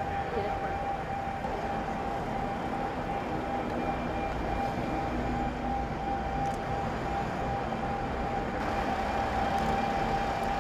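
Street background noise: a steady low rumble of traffic with a thin, steady high tone over it.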